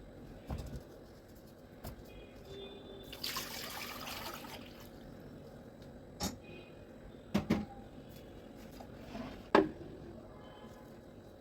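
Kitchen work sounds: a tap runs briefly for about a second and a half, and there are several separate knocks and clinks, the loudest near the end.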